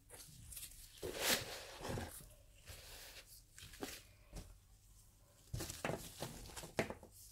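Gloved hand scooping and packing crumbly bath bomb mix of sieved bicarbonate of soda and SLSA from a plastic bowl into a small round mould. It makes irregular scraping and rustling, strongest about a second in and again after about five seconds, with a few sharp taps near the end.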